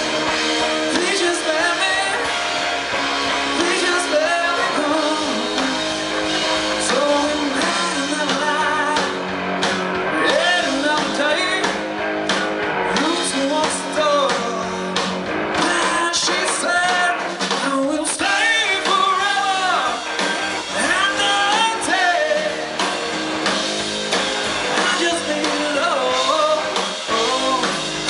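Rock band playing a song with a lead singer, voice over guitar.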